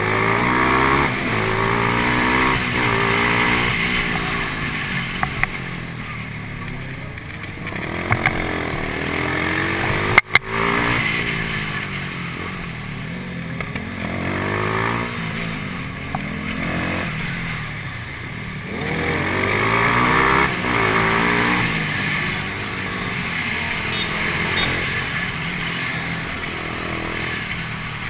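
Motorcycle engine accelerating up through the gears and easing off again several times, its pitch climbing and dropping back with each shift. A single sharp click about ten seconds in.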